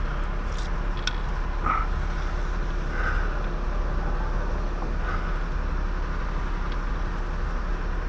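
Bucket truck's engine running steadily: an unbroken low drone, with a few faint short sounds over it.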